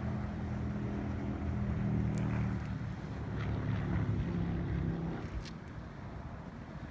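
Factory machinery running with a steady low hum, a few sharp clicks over it.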